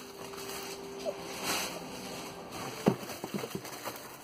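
Cardboard shipping box being opened by hand, its flaps and the plastic wrapping inside rustling. There is a sharp knock about three seconds in, followed by a few light taps.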